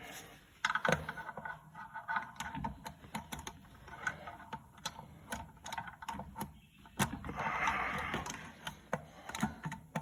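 Irregular metallic clicks, taps and scrapes of pliers and steel parts inside an E4OD transmission case, as a snap ring deep in the bell housing is worked with snap ring pliers, with a longer scraping patch about seven seconds in.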